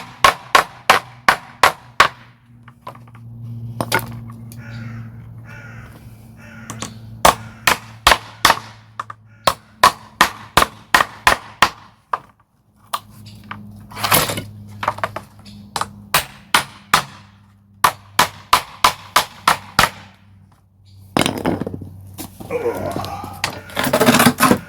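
A hammer driving nails into timber: runs of sharp strikes about three a second, broken by short pauses. Near the end comes a longer, rougher scraping noise.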